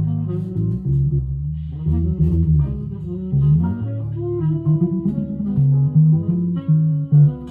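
Headless Cort electric guitar with flatwound strings, played as a steady run of plucked single notes in a low register, one note after another without pause.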